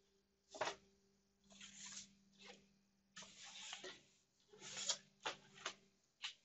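Faint, short scratchy rustling noises, about eight in a row at uneven intervals, over a faint steady low hum.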